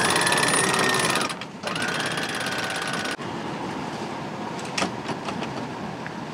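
Catamaran's engines running with a steady whine; about three seconds in the sound drops suddenly to a quieter rumble, with a few clicks a couple of seconds later.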